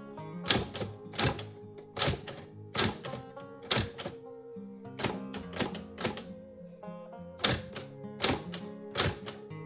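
Old manual typewriter being typed on: about twenty sharp key strikes at a slow, uneven pace, over background music.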